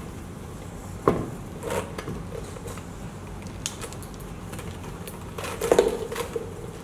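Hands handling objects on a tactile activity board: a few light knocks and rustles, with a short steady tone and a cluster of knocks about five and a half seconds in.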